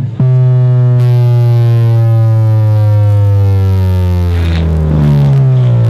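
Loud, sustained low electronic tone with many overtones blasted through a competition car sound system, starting abruptly and sliding slowly down in pitch.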